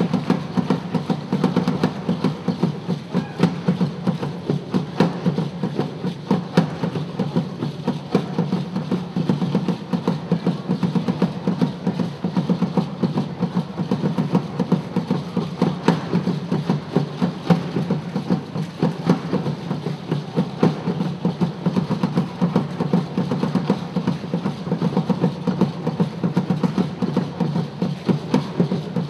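Live Afro-Haitian hand drums played by an ensemble, a steady, dense driving rhythm of strikes.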